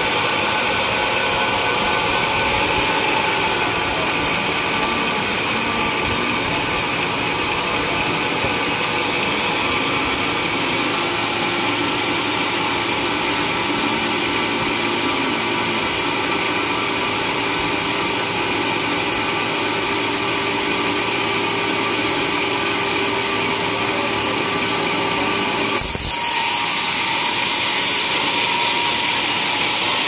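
Large band sawmill running its blade through a huge timber log, a steady sawing noise with the machine's drive under it. The sound shifts abruptly about 26 seconds in, brighter and hissier after.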